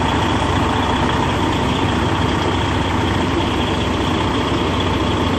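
Semi-truck's diesel engine running steadily at low revs, heard from inside the cab as the tractor backs slowly under a trailer.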